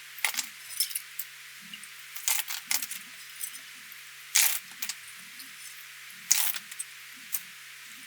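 Plastic keyboard keycaps clicking and clattering against each other as they are handled. The clacks are irregular, with the two loudest about four and a half and six and a half seconds in.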